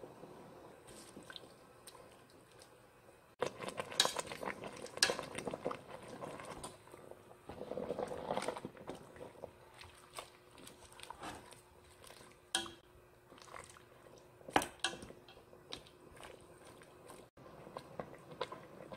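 A cooking utensil knocking and scraping against a stainless steel pot as napa cabbage outer leaves are turned over in the water, with scattered clicks, a busier run of clatter in the first half and two sharper clinks later on.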